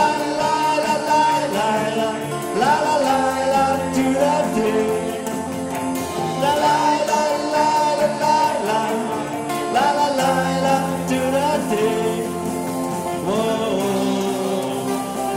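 Praise and worship music: voices singing a melody in phrases over steady instrumental accompaniment.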